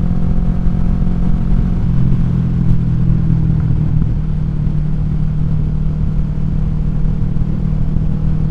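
Kawasaki Vulcan 650 S parallel-twin engine running at cruise through an aftermarket exhaust, with wind noise. The engine note shifts about two seconds in, then holds steady.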